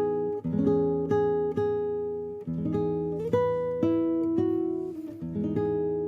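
Acoustic guitar playing picked chords with no singing, the notes struck about twice a second. Near the end a final chord rings on and begins to fade.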